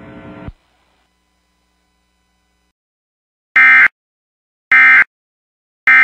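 Emergency Alert System end-of-message (EOM) data bursts: three short, identical SAME digital tone bursts about a second apart, signalling the end of the alert message.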